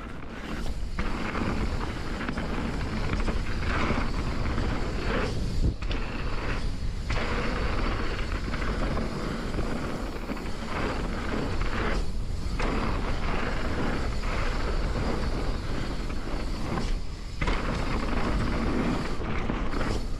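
Full-suspension mountain bike riding down a dirt trail, heard from a chest-mounted camera: knobby tyres (Maxxis Assegai front, DHR II rear) rolling over the ground, with a steady rush of wind on the microphone. The noise drops briefly several times.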